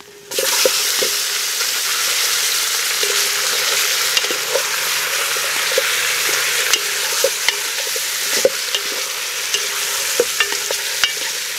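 Parboiled pork belly chunks sizzling in hot oil and onions in a metal stockpot, the sizzle starting suddenly as the meat drops in. A spatula scrapes and clicks against the pot as the pieces are stirred.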